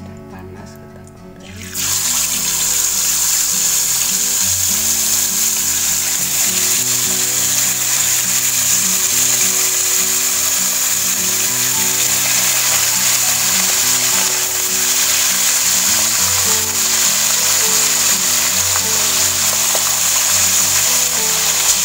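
Hot oil sizzling in a non-stick wok as pieces of hairtail fish are put in to fry. The sizzle turns loud and steady about two seconds in. Background music with a melody plays underneath.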